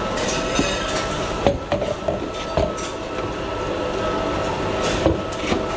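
Busy café espresso bar: a steady mechanical hum from the machines with scattered knocks and clinks of metal milk jugs and cups on a steel counter.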